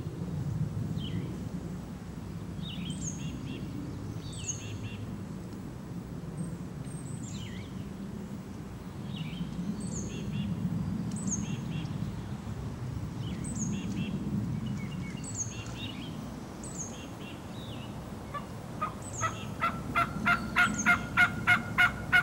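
Small songbirds chirping throughout, each chirp a short falling note, every second or so. Near the end a turkey call yelps like an old boss hen: a run of about a dozen yelps, three a second, getting louder.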